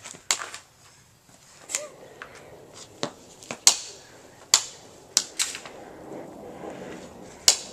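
Irregular sharp taps and knocks, about nine spread over several seconds: a small ball and a toddler's glove and shoes striking a concrete patio while he tosses and fumbles the ball.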